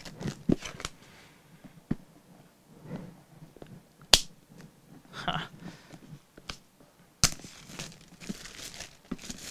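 Clear plastic shrink wrap being torn and peeled off a box: scattered crackles and crinkles, with sharp snaps about four seconds in and just past seven seconds, followed by a stretch of dense crinkling.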